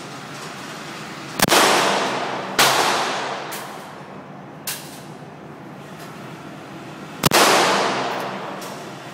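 Ruger SP101 .22LR revolver being fired: three sharp shots, two about a second apart and a third some five seconds later, each with a long echoing decay, and a fainter pop between them.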